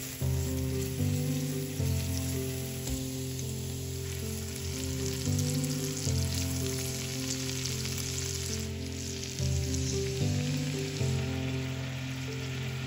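Food sizzling and crackling as it fries in hot oil in a pan, with background music playing over it.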